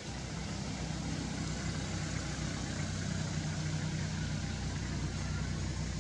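An engine running steadily, heard as a low hum.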